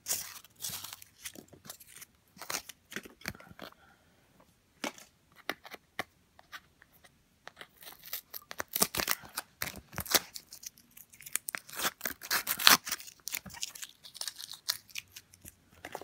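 Shiny foil wrapping being crinkled and torn off a small box by hand: irregular crackling and ripping, busiest and loudest in the second half.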